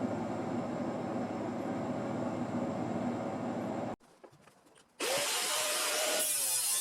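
A power tool runs steadily on sheet metal and cuts off abruptly about four seconds in. After a second of near quiet with a few light clicks, a tool starts up again, rising in pitch, and runs with a hissy grinding sound.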